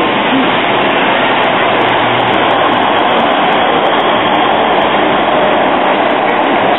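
Bombardier Flexity Swift low-floor tram pulling into a street stop and coming to a halt, heard as a steady, dense rumble and hiss with a low hum that fades away about halfway through as it stops.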